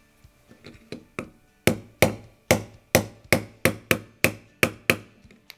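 A pin being tapped into a Glock-pattern polymer pistol frame: a few light taps, then about ten sharp, evenly spaced taps at about three a second.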